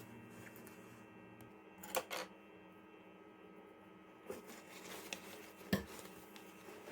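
Handling noises at the sewing work: a few scattered light clicks and knocks, a close pair about two seconds in and the loudest near the end, over a faint steady hum.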